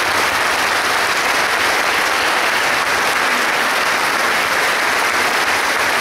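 Congregation applauding steadily, many hands clapping together.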